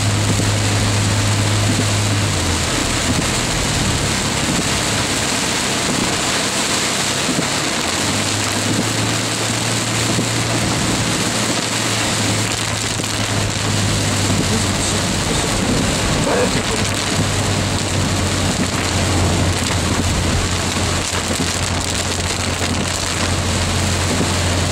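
Heavy rain on the roof and windshield of a moving car, heard from inside the cabin as a dense, steady hiss mixed with wet-road noise from the tyres. Beneath it runs a low hum from the car, which drops about two seconds in and returns a few seconds later.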